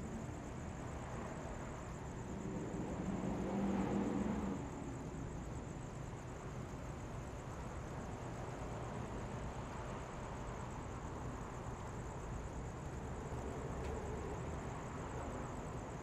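Quiet city street ambience: a steady low hum of distant traffic. One vehicle's engine grows louder about two seconds in and drops away just after four seconds. A faint steady high-pitched whine runs underneath.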